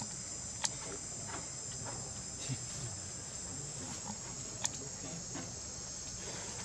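Steady high-pitched insect chorus with a few short, sharp chirps, one about half a second in and another near the five-second mark.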